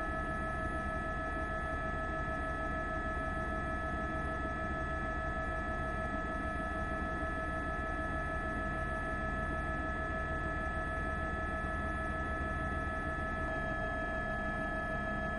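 Steady hum with several constant high whining tones over a low rumble, unchanging throughout: a news helicopter's turbine and rotor noise.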